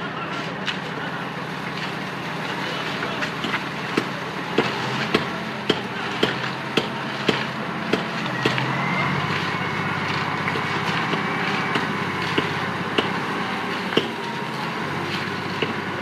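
Heavy road-building machine's diesel engine running steadily. Sharp knocks come about twice a second for a few seconds near the start, then a higher whine rises and holds briefly around the middle.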